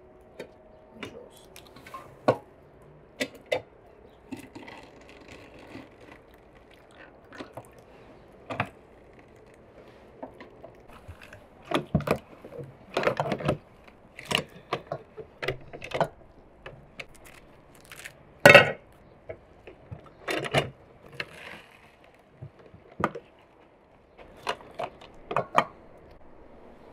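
Irregular metallic clacks and knocks of a hand-lever juice press as pomegranate halves are loaded and squeezed. The loudest knock comes a little past the middle.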